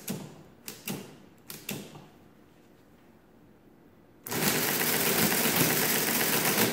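Friden S10 electromechanical calculator: a few sharp key clicks as a number is keyed in, then about four seconds in the motor starts and the mechanism runs loud and steady through a multiplication.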